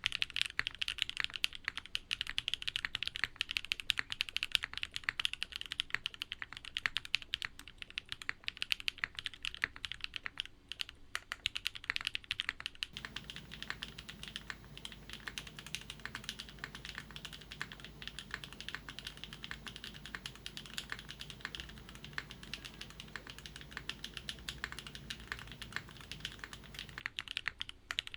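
Steady, fast typing on a mechanical keyboard with Cherry MX HyperGlide Black linear switches, a dense run of keystroke clacks. From about halfway through, the keystrokes take on a deeper, fuller tone.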